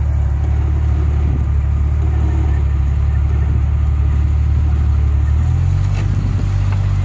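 Lifted Jeep Cherokee XJ's engine running at low revs as it crawls through a muddy ditch, the engine note changing pitch about five and a half seconds in.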